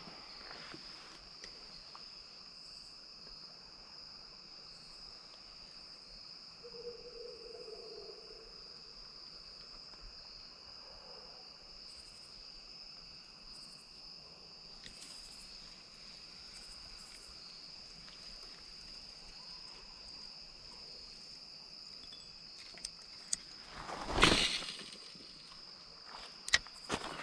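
Steady, high-pitched chorus of crickets and other insects at dusk. Near the end there is one short, louder noise, followed by a few scattered clicks.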